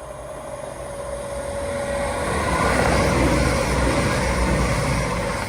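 Diesel passenger train approaching and passing at speed, its noise building steadily to a peak about three seconds in.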